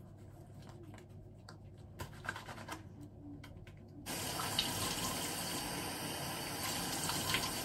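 Bathroom sink tap turned on about halfway through, running steadily into the basin. Before it starts, a few soft clicks and splashes as hands wash a face.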